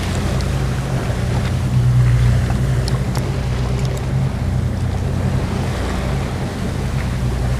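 Boat engine running steadily at trolling speed, with the wake churning behind the hull and wind on the microphone.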